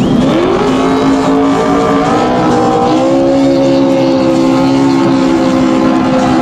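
NASCAR stock car's V8 engine revving during a tyre-smoking burnout. The pitch swings up and down at first, then holds steady from about halfway through.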